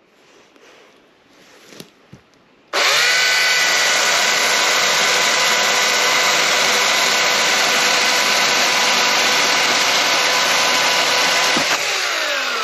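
Husqvarna Power Axe 350i battery chainsaw's electric motor spinning up about three seconds in and running at a steady pitch as the chain cuts through a wild cherry hardwood log, in normal mode rather than turbo. Near the end the trigger is released and the motor winds down with a falling whine.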